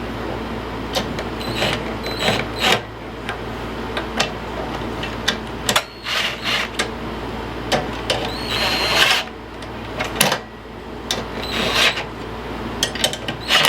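Hand ratchet and wrench clicking in short irregular runs, with metal clinks of tools and parts, as the carburetor's mounting nuts are snugged up by hand on a push-mower engine. A steady low hum runs underneath.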